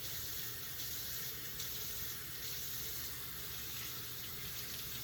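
Kitchen tap running steadily into a sink as utensils are washed.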